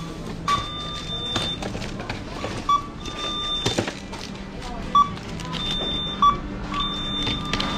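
Checkout barcode scanner beeping as groceries are scanned: a short electronic beep every second or two, some held a little longer, over steady store background noise.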